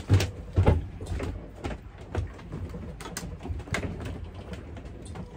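Knocks and clicks of a pot and utensils being handled on a galley gas stove, with two heavier thumps in the first second and a scatter of sharp clicks after.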